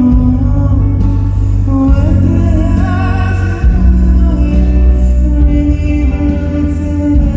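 Male vocalist singing a slow pop ballad over band accompaniment with a heavy bass line and guitar, as heard in a concert recording.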